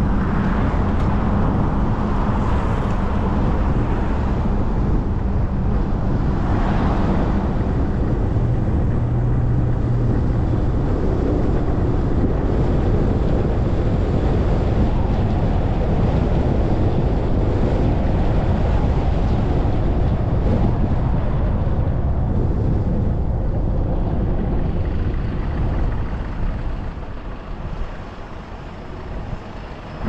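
Car driving along a road, a steady rumble of tyre and engine noise that dies down near the end as the car slows to a stop at a traffic light.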